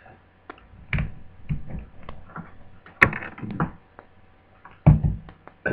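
Handling noise on a workbench: a series of irregular clicks and knocks as a laptop and its power adapter are moved about, with a sharp click about three seconds in and a heavier knock near the end.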